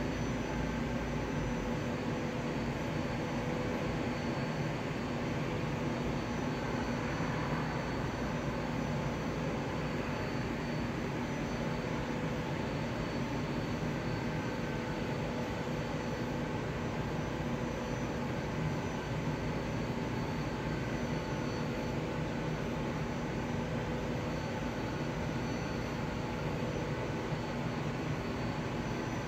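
Steady mechanical drone with a few faint steady tones, holding the same level throughout.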